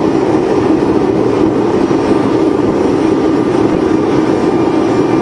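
Homemade forced-air waste-oil furnace burning steadily, giving a loud, even rushing noise from the flame and air blast, now running on waste oil rather than kerosene.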